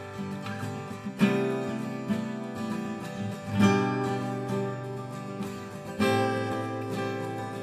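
A Breedlove twelve-string acoustic guitar and a second acoustic guitar play a simple G and C chord progression together. Strong strummed chords come about every two and a half seconds, with lighter picked notes between them.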